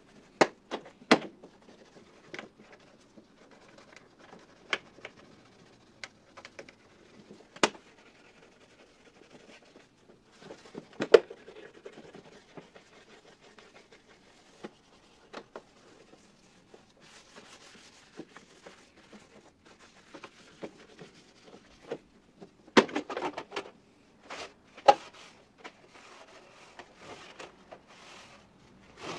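Work on an old metal toolbox: scattered sharp clicks and knocks, a few of them louder, with faint rubbing and scraping between.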